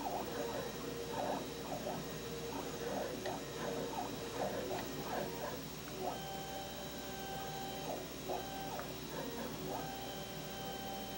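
Pan-tilt motors of an OTIMA SAB11237 speed dome camera whirring as the camera head moves inside the dome. The pitch sweeps up and down with each short move for the first six seconds or so, then settles into a steady whine with a few brief breaks as the head keeps turning.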